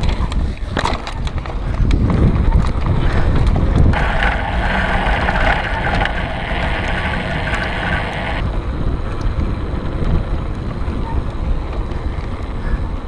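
Mountain bike riding fast down a dirt trail, heard through an action-camera microphone: wind buffeting the mic over a steady rumble of tyres on dirt, with rattling clicks and knocks from the bike in the first couple of seconds. For about four seconds in the middle a higher hiss joins the rumble.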